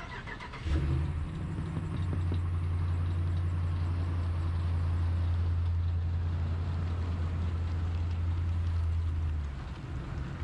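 Vehicle engine running at a steady low hum, cutting in abruptly about a second in and stopping shortly before the end.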